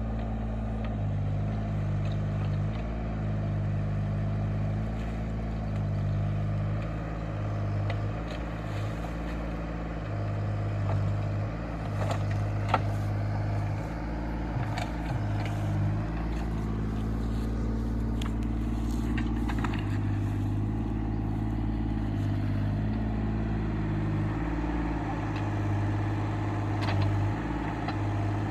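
Diesel engine of heavy earth-moving equipment running and working under changing load, its pitch stepping up and down, with a few sharp metal clanks.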